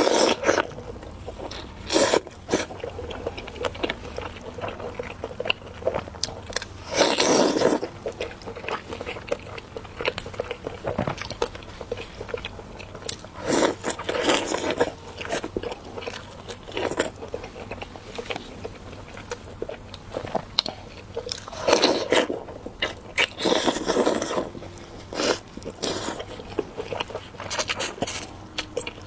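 Close-miked eating: crunchy bites and chewing that come in irregular bursts, some a second or so long.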